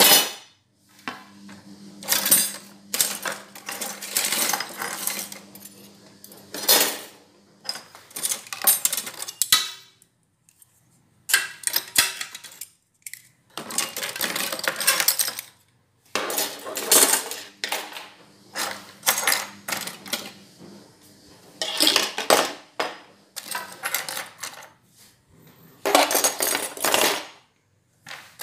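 Metal kitchen utensils (knives, tongs, a wire strainer, mixer beaters) clattering and rattling in irregular bursts with short pauses as they are taken out of a crowded drawer and set down on the counter.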